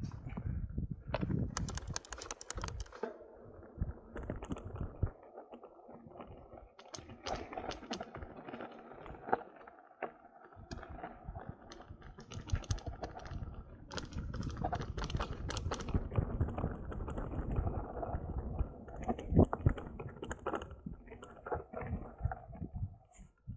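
Mountain bike rolling downhill on a dirt trail: tyres crunching over dirt and stones, with dense clicking and rattling from the bike over bumps and a low rumble underneath.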